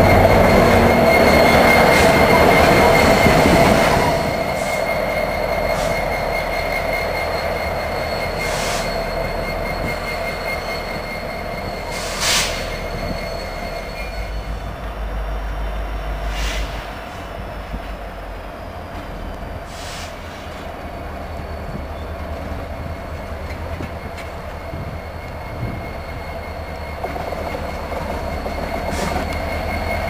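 Freight train cars and a diesel locomotive moving slowly through a rail yard. It is loud for the first few seconds, then settles to a lower rumble. A high, steady wheel squeal runs through the first half, and a few sharp metallic knocks sound along the way.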